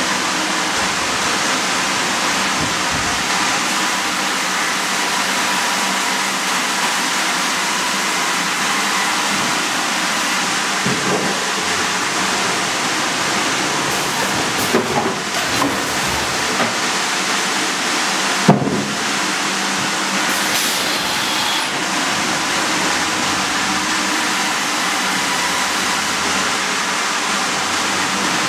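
Sawmill log carriage running a squared log past the headsaw: a steady mechanical din of the saw and carriage, with a few knocks about halfway through and one sharp, loud knock soon after.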